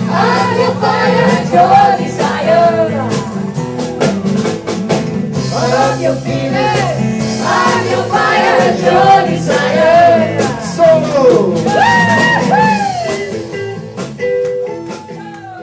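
Live band with several women singing into microphones over acoustic and bass guitar. The vocals are held and sliding notes, and the whole sound fades out near the end.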